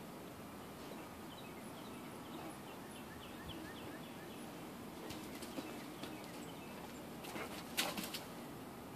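A small bird gives a quick series of short chirps about two seconds in, over a faint outdoor background. Later, dry leaves and twigs rustle and crackle in clusters as a dog runs across the leaf litter, loudest near the end.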